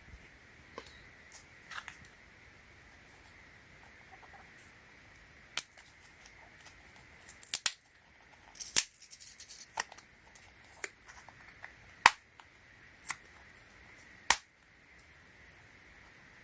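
Plastic packaging of a bicycle inner tube patch kit being handled and worked open by hand: scattered sharp clicks and snaps, with a short run of crinkling and rattling in the middle.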